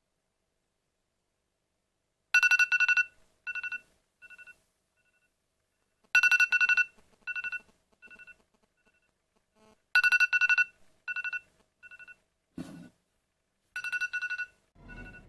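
iPhone alarm going off: clusters of rapid high beeps, each cluster fading away over about a second, repeating roughly every four seconds, beginning about two seconds in. A short dull bump sounds between the third and fourth clusters.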